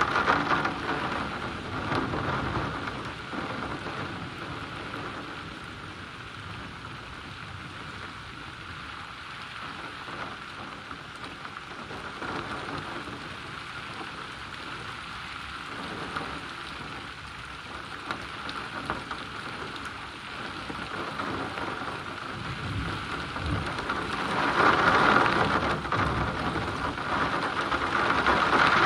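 Heavy rain falling steadily during a thunderstorm, with low rumbles of thunder. The downpour eases through the middle and grows louder again in the last few seconds.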